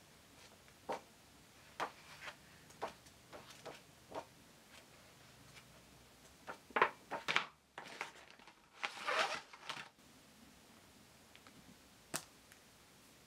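Paper pages of a large colouring book being flipped by hand: a run of soft paper flicks, then louder rustling sweeps of paper about two thirds in. A single sharp click comes near the end.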